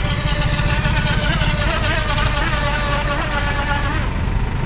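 Small RC speedboat's electric motor whining high and thin from out on the water, its pitch rising and falling as the boat runs, over a steady low rumble.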